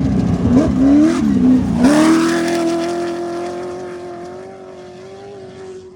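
An off-road race truck's engine revs hard, its pitch swinging up and down for about two seconds. It then holds steady revs and fades as the truck pulls away.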